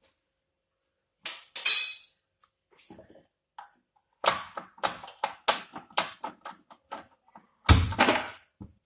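A run of sharp clicks and knocks, about two or three a second, after a short pair of bursts, with a louder, deeper thump near the end.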